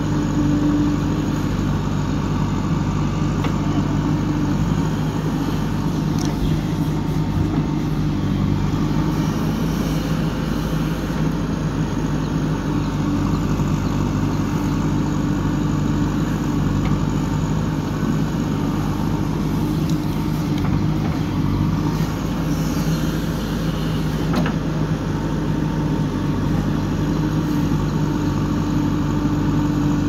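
JCB 3DX backhoe loader's diesel engine running steadily while its backhoe arm digs soil, with no clear revving.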